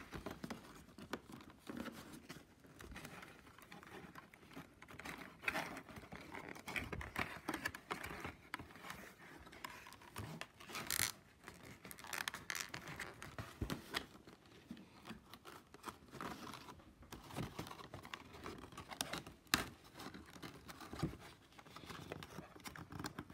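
Cardboard scenery pieces of a Playmobil Pirates advent calendar being handled and pressed together by hand: irregular rustling, scraping and small taps.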